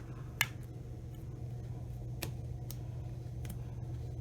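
Glue-gummed scissors trimming the cover's edges: a handful of separate sharp snips, the first and strongest about half a second in, over a steady low hum.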